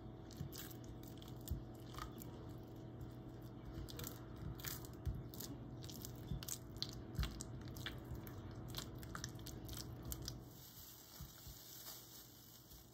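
Silicone spatula mashing and stirring cream cheese with sour cream in a glass bowl: soft irregular squelches and light clicks against the glass. A steady low hum runs underneath and stops about ten seconds in.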